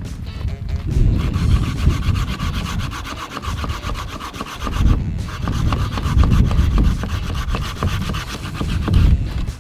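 Rasping, scraping strokes from a hand tool working through a hard material, in two long runs with a short break about five seconds in.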